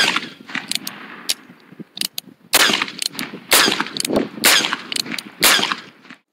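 Black powder percussion revolver firing a blank with one sharp, loud report. Short clicks of the hammer being cocked follow, then several more loud pops about a second apart.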